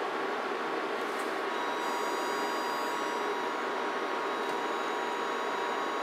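Steady hiss and whine of electronic test gear on a CB radio bench while a radio is keyed into it, with one steady thin tone throughout and fainter high-pitched whistling tones joining about one and a half seconds in.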